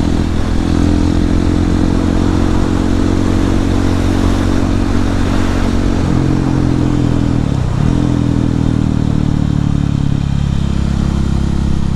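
Husqvarna 701 supermoto's single-cylinder engine running steadily under way, heard through a helmet microphone with wind noise over it. The engine note shifts about six seconds in and dips briefly near eight seconds before picking up again.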